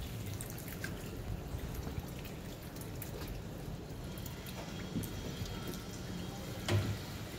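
Canal water splashing and dripping around a moving gondola, over a steady low rumble, with one dull knock near the end.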